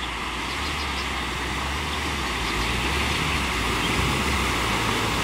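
Four-wheel-drive vehicle wading through a muddy creek crossing: its engine hums steadily at low speed, with the wash of water pushed ahead of it, growing louder as it comes closer.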